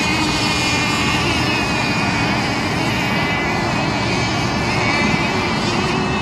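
Several radio-controlled race boats' engines running at high revs, a steady buzz made of several pitches that waver up and down.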